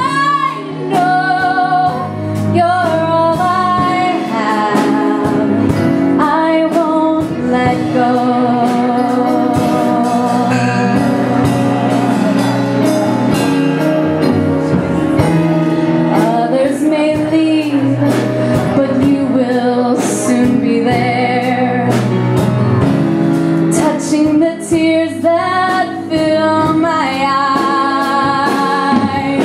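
A woman singing a ballad live into a handheld microphone, amplified over the band's accompaniment, with long held notes and vibrato.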